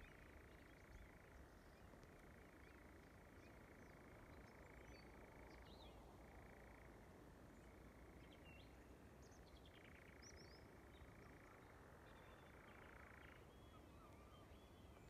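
European nightjar churring, the male's courtship song: a faint, unbroken trill that jumps back and forth between a higher and a lower pitch every second or few, with a few short high calls over it.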